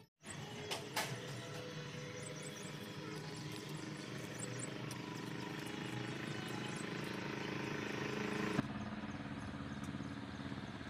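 A motor engine running steadily nearby, slowly getting louder and then dropping in level abruptly near the end, with small birds chirping in the first few seconds.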